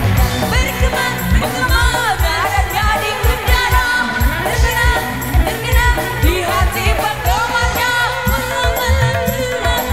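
Live amplified dangdut band music: a woman singing a wavering melody over keyboard and a steady low drum beat.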